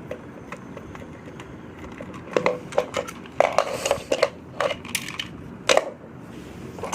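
A series of sharp clicks and clatters, several in quick succession about halfway through: a plastic motorised toy engine and its batteries being handled while the batteries are fitted.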